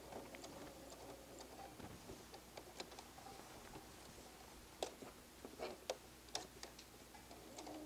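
Baby Lock sewing machine stitching down an appliqué, heard faintly as a low hum with scattered, irregularly spaced light clicks.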